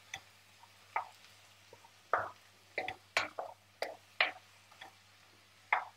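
Wooden spoon stirring sliced courgettes and broccoli in a frying pan: a string of irregular short knocks and scrapes against the pan.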